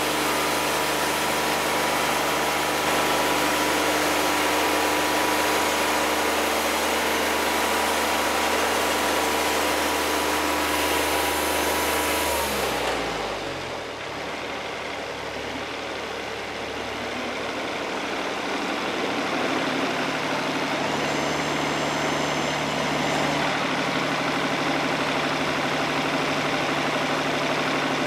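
Wood-Mizer LT50 Wide portable band sawmill's engine running steadily at speed. Partway through, its pitch falls over about a second as it winds down to idle, then it keeps running steadily and grows slightly louder again while the saw head travels back along the bed.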